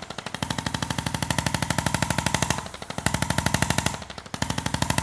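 Percussive massage gun running on the body: a rapid, even train of taps over a steady motor whine. It softens briefly twice, about two and a half and four seconds in.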